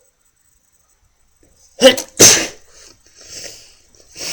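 A man's loud, self-induced sneeze about two seconds in, brought on by pushing a fingertip against the back wall of his nostril. It comes as two sharp bursts in quick succession, followed by quieter breathy noises.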